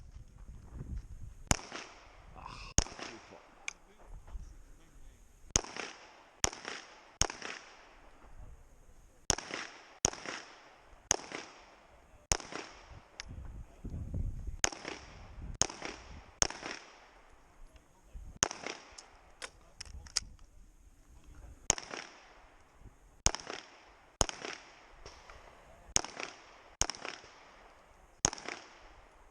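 Pistol-calibre gunfire in a practical-shooting course of fire: single shots and quick pairs at an uneven pace, each with a short echo, with brief pauses between groups.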